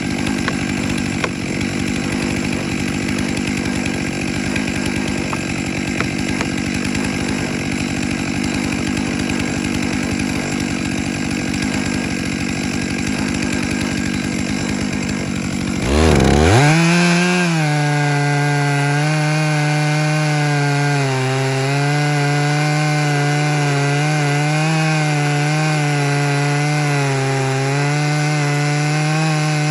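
Large two-stroke chainsaw on a chainsaw mill, running at full throttle while ripping lengthwise through a pine log. About halfway through, the sound changes abruptly from a rough, noisy cutting sound to a clear, steady engine note that wavers slightly in pitch as the load varies.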